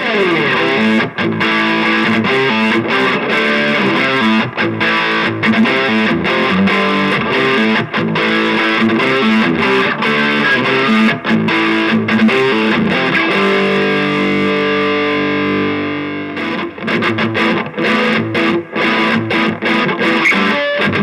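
Electric guitar played through a Shredhead distortion pedal into a cheap amplifier: distorted riffs and picked notes. About two-thirds of the way through, a chord is left to ring and fade, then the playing starts again.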